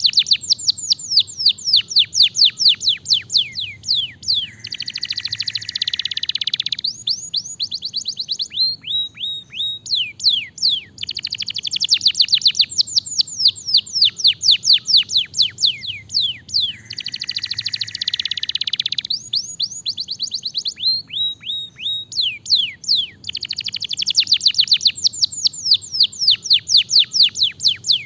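Domestic canary singing: long runs of rapid falling whistled notes broken by buzzy rolls, the same sequence of phrases coming round about every twelve seconds.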